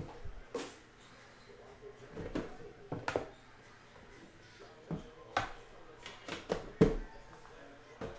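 A metal collector's tin and cardboard card boxes being handled: scattered knocks, taps and light scrapes as the tin lid is lifted off and a pack box is taken out, with the loudest knock about seven seconds in.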